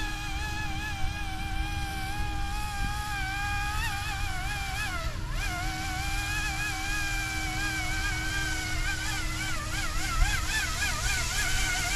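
YUXIANG F09-S RC helicopter's electric motor and rotor whining in flight, the pitch wavering up and down, more quickly near the end. Wind rumbles on the microphone underneath.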